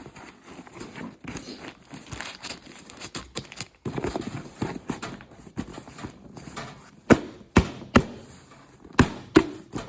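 Kraft and crinkle packing paper rustling as it is tucked and pushed down into a cardboard box, then five sharp knocks in the last three seconds as the packing is pressed in.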